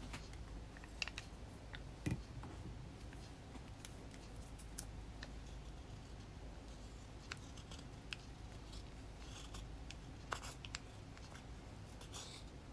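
Clear plastic spatula scraping pressed powder blush out of a plastic compact: faint, scratchy scraping with a few light clicks and taps of plastic, the clearest about two seconds in and again near ten seconds.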